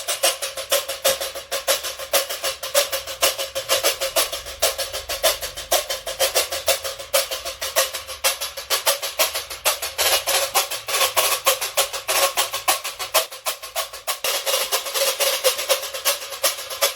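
Reco-reco scraped in a fast, steady pagode/samba rhythm: a continuous run of dense, scratchy strokes, several a second, with no other instrument prominent.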